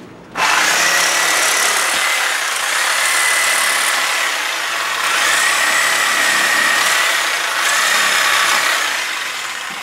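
Reciprocating saw (Sawzall) starting about half a second in and running for several seconds, cutting the pins that stick out of the wood knife scales down flush. Its motor whine wavers a little in pitch, and the sound tails off near the end.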